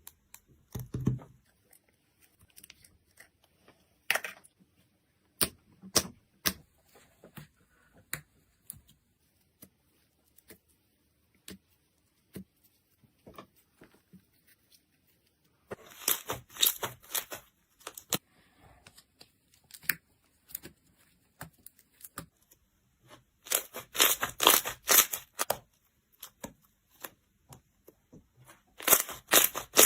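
Slime being pressed and stretched by hand, giving sharp crackling clicks and pops: scattered single clicks at first, then three dense bursts of crackle.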